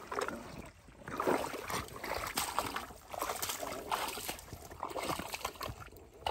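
Shallow muddy water sloshing and splashing in irregular surges as a person wades and drags a plastic crate of fish through it.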